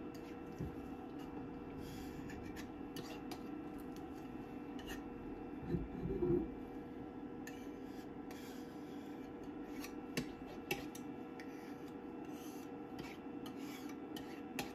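Plastic scraper scraping excess resin off a resin 3D printer's build plate in short, intermittent strokes, with a couple of dull knocks from handling about six seconds in.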